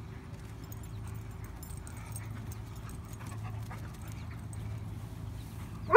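Low, steady outdoor background with faint scattered ticks, then a dog's loud bark right at the end.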